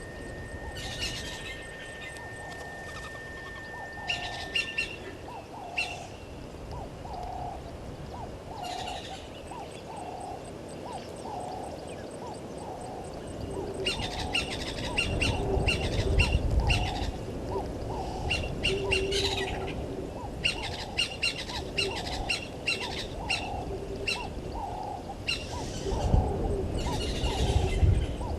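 Wild birds calling: one low note repeated a little more than once a second, over bursts of quick high chirping. A steady thin whistle sounds for the first few seconds, and a low rumble rises twice, about halfway through and near the end.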